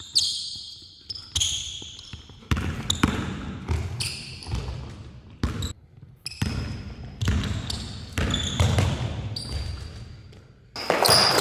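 Basketball dribbled on a hard court: a run of irregular sharp bounces, with short high squeaks between them.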